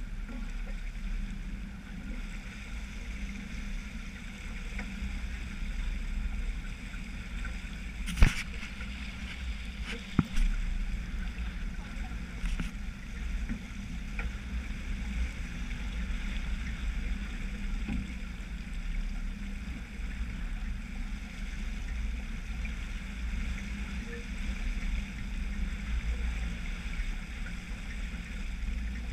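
Steady rush of water foaming along the hull of a sailboat under sail, with wind buffeting the microphone as a low rumble. Two sharp knocks stand out, about eight and ten seconds in.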